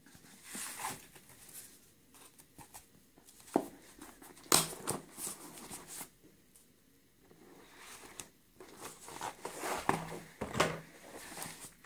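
Foam packaging and a cardboard box handled by hand: scattered rustles, crinkles and soft knocks with quiet gaps, the sharpest about four and a half seconds in, as a foam-wrapped tablet is lifted out of its box.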